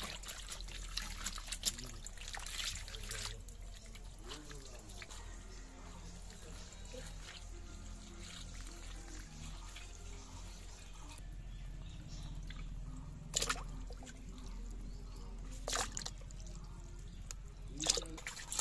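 Water trickling and splashing as pieces of bata fish are rinsed by hand on wet concrete and in a bucket of water. There are three sharper splashes in the second half.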